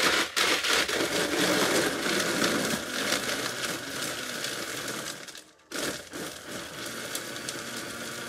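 Countertop blender running, crushing ice for a margarita with a gritty crackle. It stops about five and a half seconds in, then starts again more quietly for the last few seconds.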